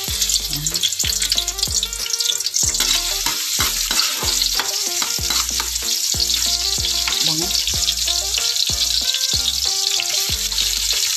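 Chopped garlic and onion frying in hot oil in a wok, sizzling steadily as they are stirred.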